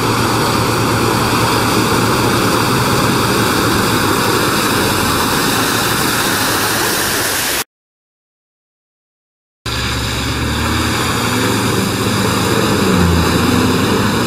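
4WD engines driving hard through deep mud, with mud and water churning and splashing around the tyres: first a Nissan Patrol, then after about two seconds of total silence in the middle, a second 4WD whose engine pitch rises and falls as it revs through the mud hole.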